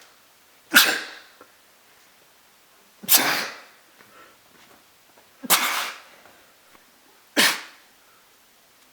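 A person sneezing four times in a row, about every two seconds, in a sneezing fit. Each sneeze starts sharply and fades quickly.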